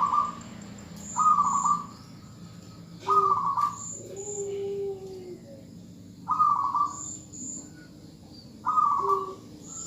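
Female zebra dove calling: five short rolling calls a second or more apart, twice followed by a longer, lower held note. Calls like these are used to lure a male zebra dove into singing.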